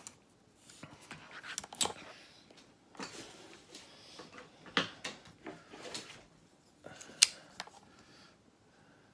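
Scattered clicks, snips and rustling as the outer jacket of a USB charging cable is cut and pulled back to expose the wires inside, with a sharp click about seven seconds in.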